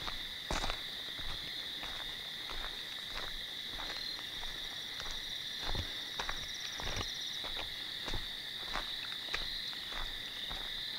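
A steady, continuous high trill from a chorus of night insects, with irregular crunching footsteps through dry leaf litter.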